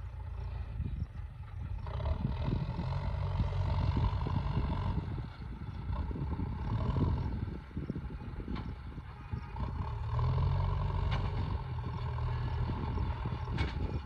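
Diesel engines of a JCB 3DX backhoe loader and a Tata tipper truck at work some distance off. The engine note swells twice as they are worked harder, over rough wind buffeting on the microphone.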